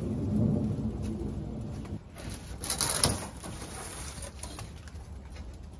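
Double-walled polycarbonate greenhouse roof panel being worked loose and pulled out of its frame: a low rubbing rumble, then a louder scraping rush about three seconds in as the panel slides free.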